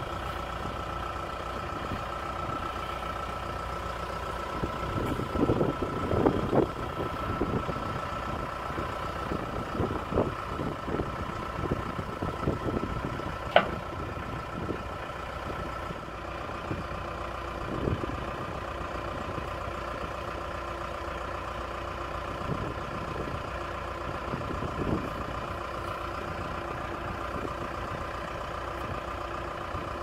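John Deere 310SJ backhoe loader's diesel engine running at idle with a steady whine, rising in surges about five seconds in and again around ten to thirteen seconds as the loader is worked. A single sharp click comes in the middle.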